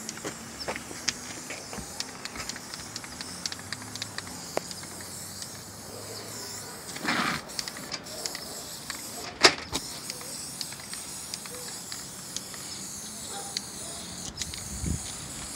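Aerosol spray can of primer hissing as it is sprayed around the metal flange of a roof fan. Scattered faint clicks run through it, with a short louder noise about seven seconds in and a sharp knock about two seconds later.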